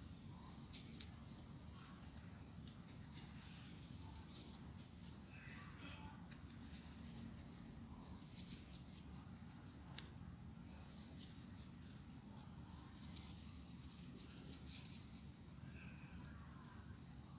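Stiff folded paper crackling and clicking as triangular 3D origami units are handled and pushed into place, in scattered runs of small dry clicks over a low steady background hum.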